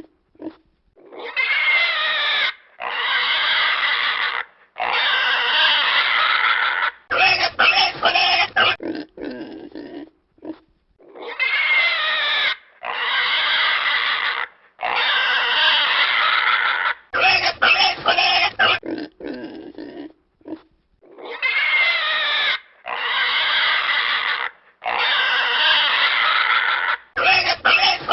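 Pig squealing in three long, wavering cries, then a quick run of short grunts; the same sequence repeats about every ten seconds.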